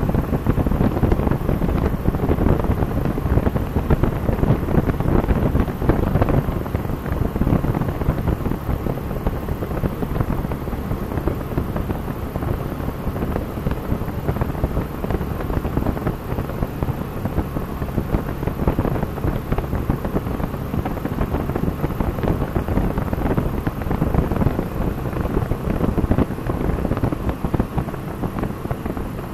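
Cessna 172's piston engine and propeller running steadily in cruise, heard inside the cabin with wind noise from the airflow over the airframe.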